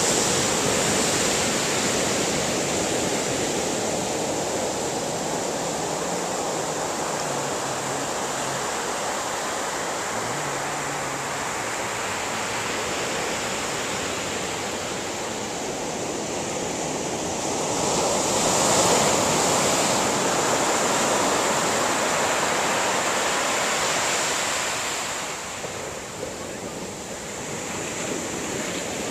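Ocean surf breaking and washing up the sand in a steady rush, swelling louder about two-thirds of the way through as a wave breaks and runs in, then easing off.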